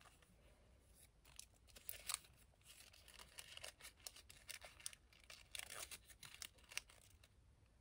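Faint crinkling and rustling of a paper burger wrapper in the hands while a burger is eaten, as a run of small irregular crackles.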